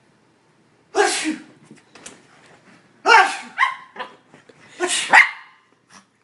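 A person's loud sneezes with a dog barking at them, in three sudden bursts about two seconds apart.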